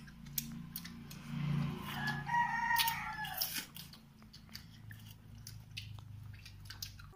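A rooster crows once, starting about two seconds in and lasting about a second and a half. Small clicks of people eating rice by hand are heard around it.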